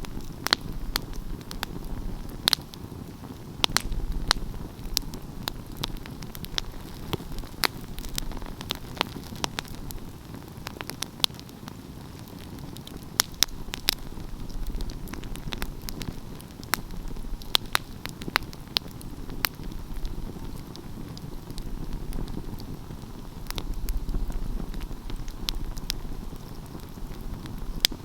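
Wood fire crackling, with sharp irregular pops and snaps several times a second over a low, steady rumble.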